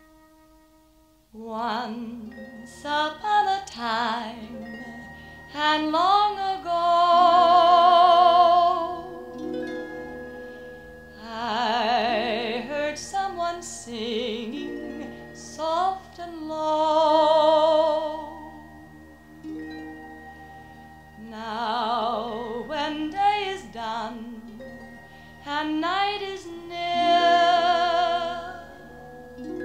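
A woman singing a slow Broadway show tune in long held phrases with vibrato, over a soft orchestral accompaniment with harp-like plucked strings. The music begins about a second and a half in, after a brief pause.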